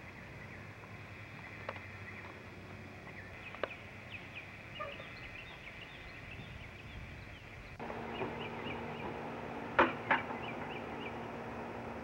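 A bird calling in quick runs of short, high, falling chirps, about four or five a second. Two loud sharp clicks come close together near the end, and a steady hum starts suddenly about eight seconds in.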